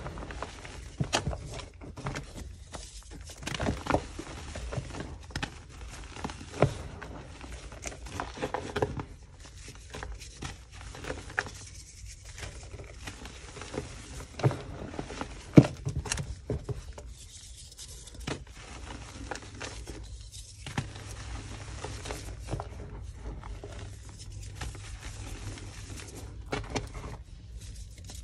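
Yellow gym chalk blocks being crushed and crumbled by hand: irregular dry crunches and crackles with powder sifting between the fingers. Several louder sharp cracks are scattered through it as chunks break.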